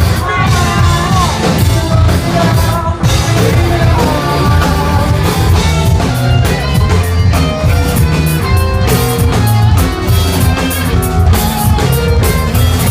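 Live rock band playing: singing over electric guitars and a drum kit.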